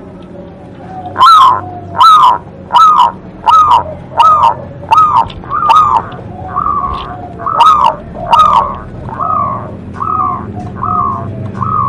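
Local zebra dove (perkutut) cooing: a long series of the same arched note repeated about every two-thirds of a second, starting a little over a second in, the later notes softer than the first.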